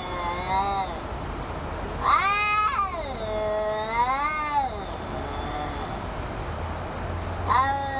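A cat yowling: several long, drawn-out meows that rise and fall in pitch, with a pause of a couple of seconds before the last one starts near the end.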